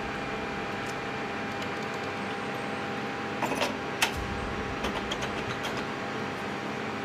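Steady mechanical hum with a couple of faint held tones, broken around the middle by a few clicks and rattles, the sharpest a single click about four seconds in.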